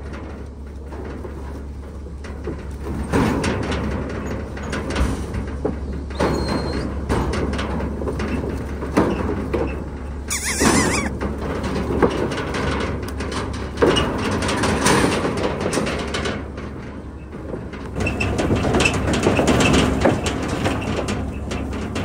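Calves' hooves knocking and clattering on the floor of a stock trailer as they are loaded, with the trailer panels and gate rattling in irregular bumps, over a steady low hum.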